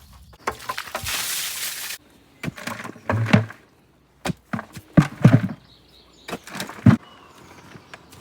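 Hand digging in rocky soil with a shovel and pickaxe. About a second in there is a gritty scrape of about a second, followed by a string of sharp knocks and thuds of the tools striking stones and dirt.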